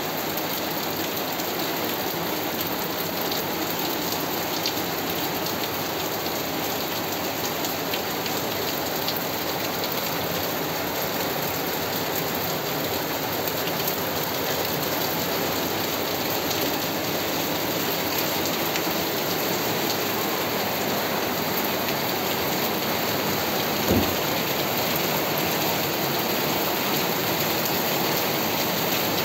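Steady rain falling, an even hiss throughout, with a single brief low thump about five seconds before the end.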